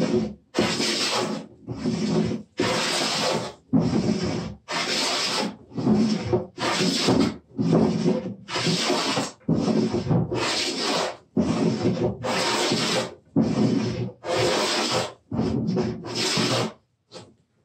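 Wooden jointer plane shearing shavings off a wooden workbench top in repeated strokes, each a rasping hiss, about one a second, with a few shorter quick strokes near the end. The plane is taking heavy cuts to flatten the bench top.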